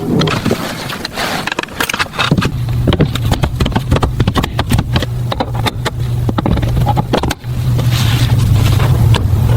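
A car engine running with a steady low drone that sets in about two seconds in. Many sharp clicks and knocks sound over it, and it dips briefly near the end.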